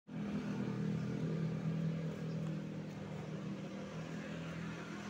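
An engine running steadily, a low, even hum.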